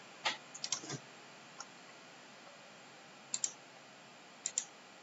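Computer mouse clicking: several short, sharp clicks, some in quick pairs, over faint background hiss.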